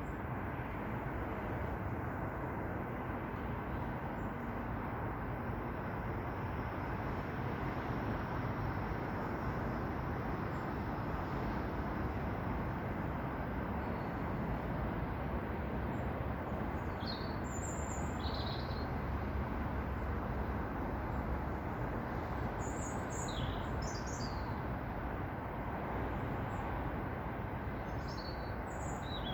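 Steady low rushing background noise, with short high bird chirps coming in from about halfway through, in clusters near the end.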